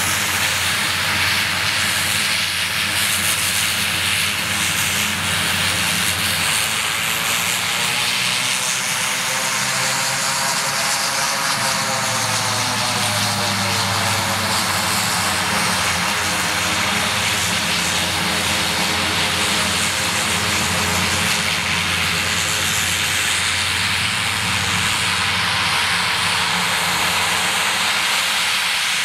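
The twin Garrett TPE331 turboprop engines of a Short SC-7 Skyvan running at taxi power: a steady hissing whine over a propeller drone. About a third of the way in, the pitch of the engine tones rises and falls back over several seconds as the aircraft turns on the runway.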